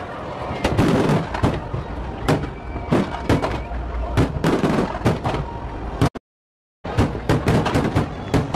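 Fireworks display: many sharp bangs of aerial shells bursting in quick, irregular succession over a continuous crackling rumble. The sound cuts out completely for about half a second some six seconds in.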